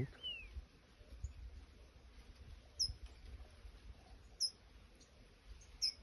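Green-winged saltator (trinca-ferro) singing its 'curricutil boca mole' phrase. A whistled note falls away at the start, then three short sharp high chirps come about a second and a half apart.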